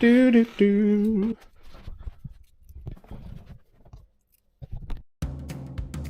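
A man humming two long wavering notes, followed by faint clicks and taps of small hardware being handled. Background music with a drum beat comes in about five seconds in.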